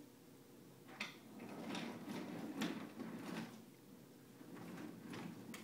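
Toy trains being pushed and handled on a wooden train table: a low rolling rumble in the middle with several clacks and knocks of the cars and track pieces.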